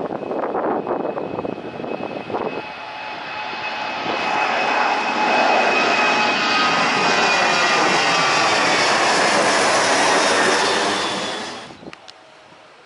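Twin-engine jet airliner at take-off power climbing out overhead. The engine roar starts gusty and uneven, swells to its loudest as the jet passes above, with a high whine that slides slightly lower, and then cuts off abruptly near the end.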